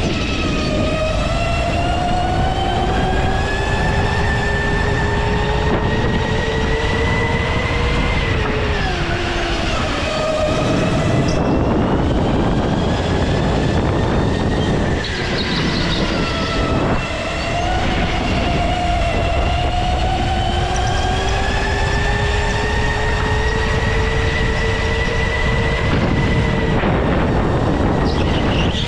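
Go-kart motor heard from the driver's seat under a steady rush of wind and tyre noise. Its pitch climbs slowly for about eight seconds, falls away, stays low for several seconds, then climbs again and drops near the end: acceleration along straights and lifting off for corners.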